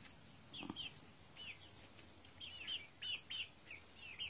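Young chickens peeping softly: a scattering of short, high chirps that come more often toward the end. There is no crow.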